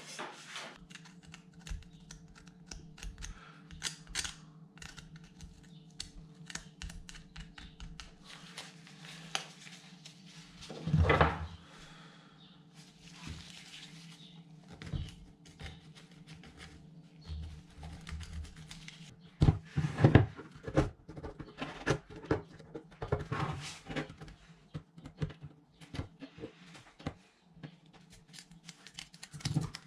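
Gloved hands handling small bicycle drivetrain parts and picking dirt off a cassette sprocket with a metal pick: irregular small metal clicks, taps and scrapes, with louder knocks about eleven seconds in and a cluster around twenty seconds in.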